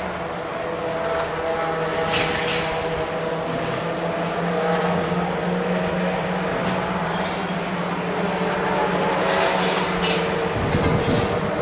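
Engines of Chevrolet Cruze one-make touring cars running on the circuit: a steady engine note that holds throughout, with brief hissy swells now and then.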